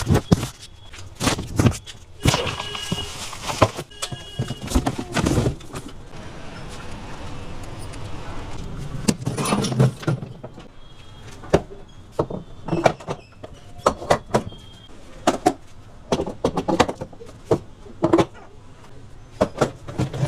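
Remote-control toy jeep being handled: a run of irregular sharp clicks and knocks of hard plastic, with a brief steady high whine a few seconds in.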